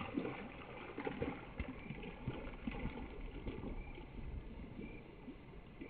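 Irregular thumps and rustling of footsteps through grass and handling of a carried camera, with a short high chirp repeating about once a second.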